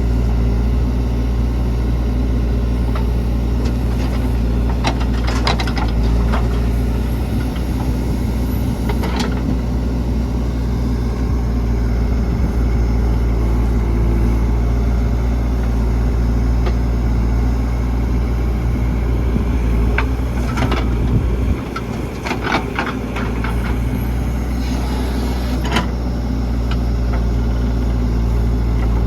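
Heavy diesel engine running steadily at a low, even pitch, with scattered clanks and knocks at several points from the backhoe loader's work of loading mud.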